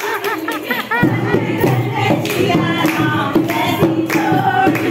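Music: a song with singing over a steady percussion beat, getting fuller about a second in.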